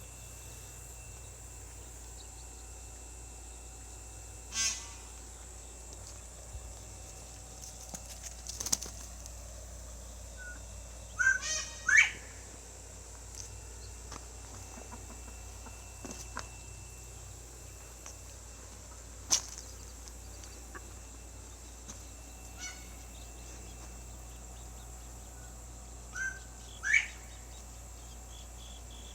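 A few short bird calls over a steady insect hum: a rattling call about four seconds in, then rising chirps twice, with a couple of sharp clicks between.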